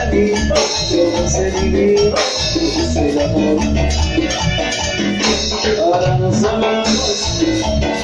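A live band playing Latin dance music, with a steady pulsing bass beat under a melody line.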